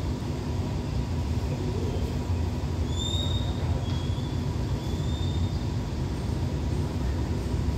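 Steady low rumble of a standing diesel-hauled passenger train idling, with a few faint high whistling tones about three to five seconds in.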